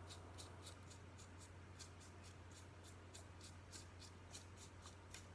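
Faint quick strokes of a correction-fluid brush applicator on paper, about three or four short scratchy dabs a second, over a steady low electrical hum.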